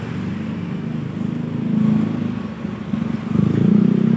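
Road traffic passing: motor vehicle engines running, with one growing louder as it approaches about three seconds in.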